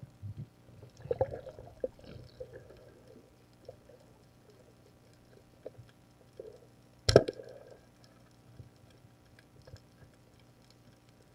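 Underwater sound with faint clicks and water movement, then one sharp snap about seven seconds in: a speargun being fired.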